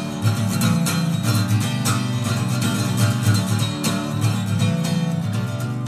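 Acoustic guitar strummed in a steady rhythm, played solo with no singing.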